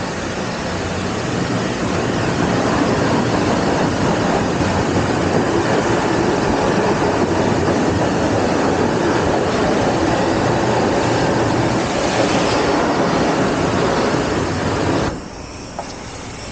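High-pressure wash wand spraying water onto a bare motorcycle engine and frame and the trailer beside it: a steady hiss and spatter that cuts off near the end.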